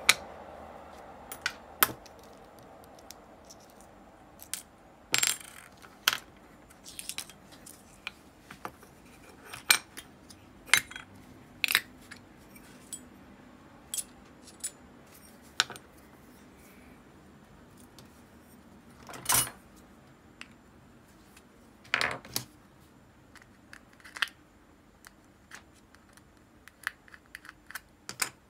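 Metal parts of an Abu Garcia Ambassadeur 5500C baitcasting reel clinking and clicking as they are handled and set down on a wooden table during disassembly: scattered sharp taps, a few of them louder.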